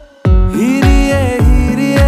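Background pop song: a vocal melody over a bass beat, after a brief break in the sound at the very start.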